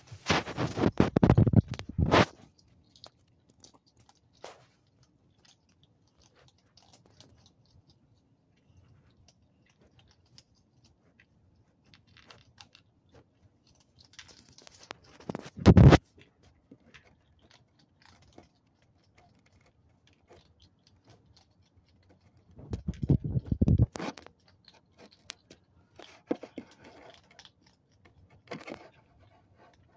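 Close crunching and scraping in three loud spells of one to two seconds: at the start, about halfway through and near 23 seconds in. Faint scattered clicks fill the stretches between.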